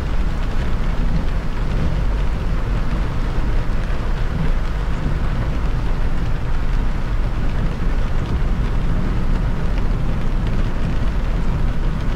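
Car travelling at highway speed in the rain: a steady low rumble of road and engine noise with the hiss of tyres on wet pavement.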